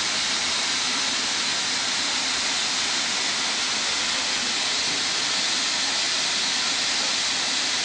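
Natural gas rushing out of a burst pipe under pressure: a loud, steady hiss that does not change.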